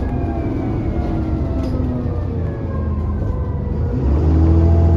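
Double-decker bus engine and transmission heard from inside the passenger saloon, the pitch falling as the bus eases off. About four seconds in, the engine pulls harder: a louder, deeper drone comes in and the pitch starts to rise as the bus accelerates.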